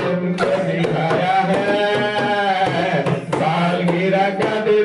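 A man singing a melody into a handheld microphone, holding a long wavering note around the middle, over hand strokes on a dholak, a two-headed barrel drum.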